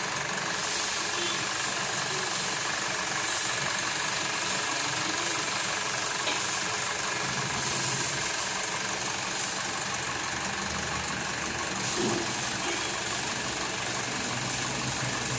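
Royal Enfield Bullet's single-cylinder engine running steadily, with no revving.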